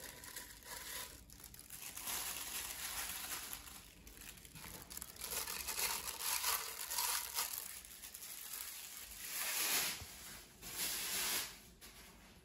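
Thin plastic disposable glove crinkling and rustling in repeated swells as the gloved hand presses and arranges raw turkey cutlets in an air fryer basket.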